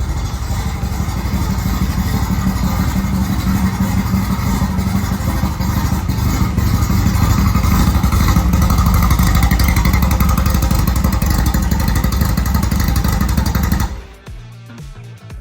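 Air-cooled VW 1776cc flat-four engine running, getting a little louder about six seconds in, then cutting off about a second before the end.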